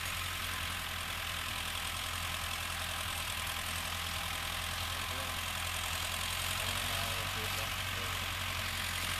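Tractor engine running steadily under load, pulling a three-bottom disc plow through the soil.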